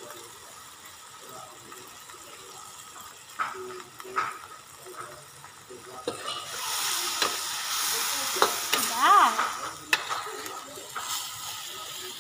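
A wok of mushrooms and midin fern sizzling, with a metal spatula scraping and clicking against the wok as it is stirred. The wok is wet with liquid the mushrooms have released. It is quiet with a few light clinks at first; the sizzle and scraping start about halfway through.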